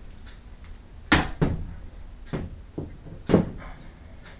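Knocks and clunks of a computer case's metal side panel being handled and taken off: about five sharp knocks, the loudest a little after one second and again past three seconds.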